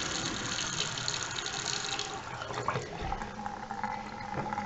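Water running out of a water heater as the tank is drained, a steady pouring that is slow because the cold-water supply is shut off and there is little pressure behind it.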